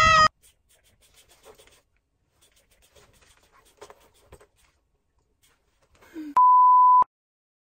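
A loud shout cuts off right at the start, followed by near silence. Near the end comes a single loud electronic beep, one steady pure tone held for about two-thirds of a second, of the kind used as a censor bleep.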